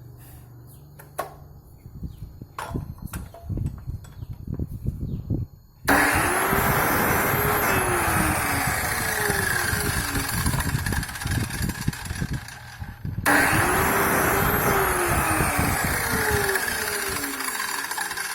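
Mini cut-off saw with a 180 mm blade, switched on twice: it starts suddenly about six seconds in, runs for about seven seconds with a whine that rises and then falls, stops briefly, and then starts again. Before the first start there are a few scattered knocks and clicks.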